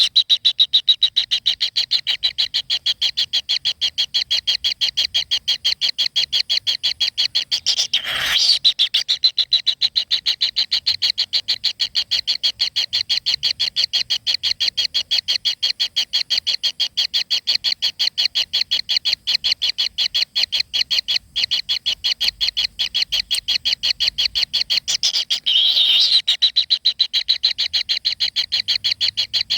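A bird's rapid, steady chirping: short high notes repeated evenly several times a second without a break, with brief louder rustling bursts about eight seconds in and again near the end.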